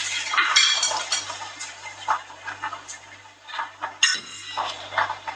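Kitchen clatter: a scattered series of light clinks and knocks from plates, utensils and containers handled on the counter, with a faint low steady hum underneath.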